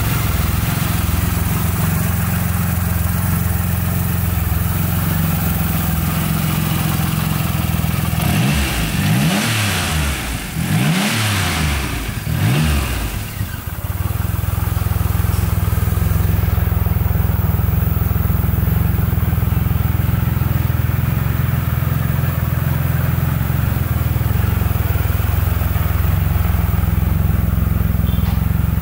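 2014 Triumph Rocket III Roadster's 2.3-litre inline three-cylinder engine idling steadily, revved in a few quick blips that rise and fall about a third of the way through, then settling back to idle.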